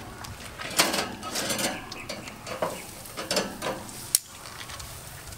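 Scattered clinks, clicks and rustles of food and dishes being handled at a table, with one sharp click about four seconds in.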